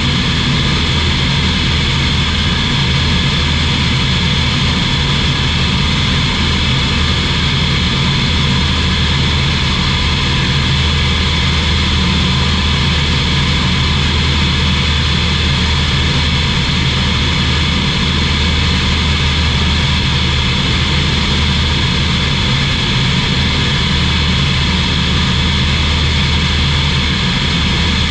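SportCruiser light aircraft in cruise flight: its Rotax 912 flat-four engine and propeller running with a steady, unchanging drone.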